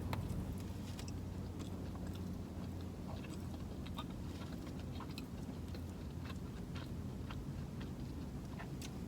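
Close-up chewing of a sauced boneless chicken wing: soft, wet mouth clicks and smacks at an irregular pace, over a steady low hum.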